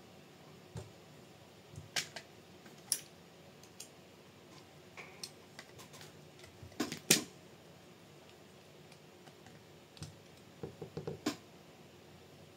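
Small hard kit parts clicking and tapping as they are handled and fitted by hand during chassis assembly: scattered light clicks, a louder pair about seven seconds in and a quick run of clicks near the end.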